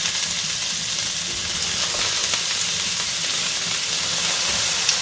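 Large whole shrimps frying in hot oil in a nonstick frying pan: a steady sizzling hiss with faint crackles.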